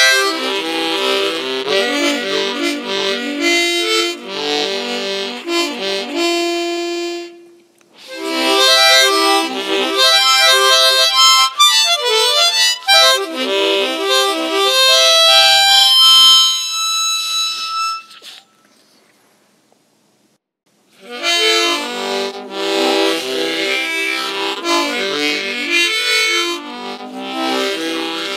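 Harmonica played from a neck rack over strummed acoustic guitar, a tune in quick phrases. The music breaks off briefly about seven seconds in, and again for a couple of seconds about two-thirds of the way through, after some held high notes die away.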